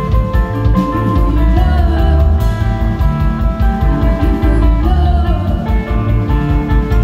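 Live band playing: electric guitars and electric bass over a drum kit, loud and steady.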